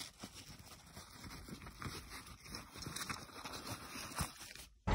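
Soft, irregular rustling and handling of a fabric backpack with mesh pockets as items are packed into it.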